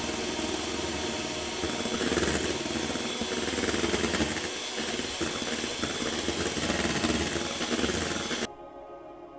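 A small electric kitchen appliance motor running with an uneven whirring noise, switched off suddenly near the end.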